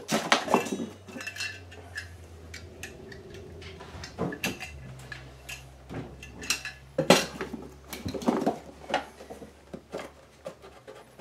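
Irregular clinks, knocks and rattles of small old objects, a metal canister and small boxes, being picked up and handled while rummaging through a box. The sharpest knocks come about four and seven seconds in.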